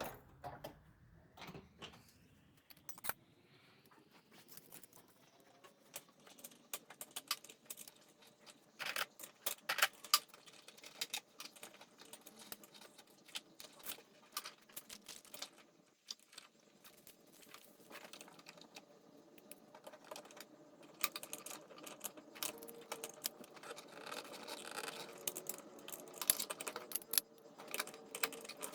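Irregular small metallic clicks and clinks of a hand wrench working a brake booster nut up under the dashboard, with the tool knocking on the surrounding metal.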